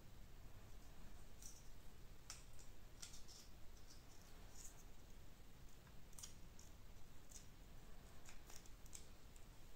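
Faint, irregular clicks and taps of small 3D-printed plastic parts and a coil spring being handled and fitted together by hand.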